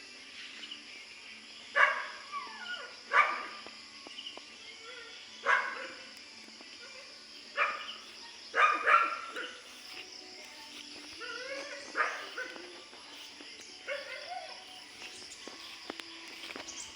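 A dog barking in short, separate barks, about eight over the span, some in quick pairs, over a steady high hiss.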